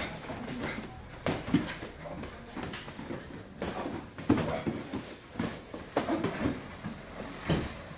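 Muay Thai pad work: gloved punches, kicks and knees smacking into handheld Thai pads in irregular strikes, several in quick succession at times, with short hard exhalations from the fighters.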